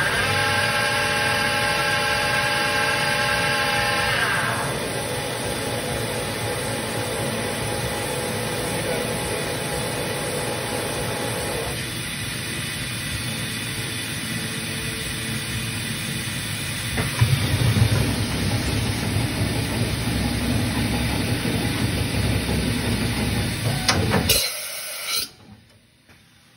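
2018 Mazak VTC-200G vertical machining center running: a steady whine of several tones for about the first four seconds, then an even hiss with mechanical running noise that turns heavier and lower from about 17 seconds in. A few clicks near the end, then the sound cuts off suddenly.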